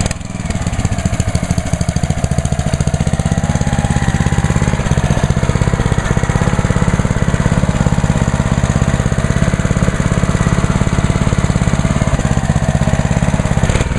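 Honda GCV190 single-cylinder four-stroke engine of a Ryobi gas pressure washer running steadily at idle, the spray trigger not pulled so the idle-down keeps it below full throttle.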